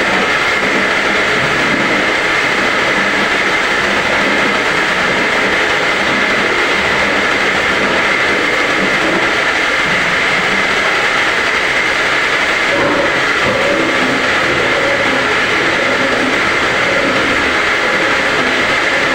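Home-assembled round gallon bottle washing machine running: a loud, steady mechanical whir with a constant high whine.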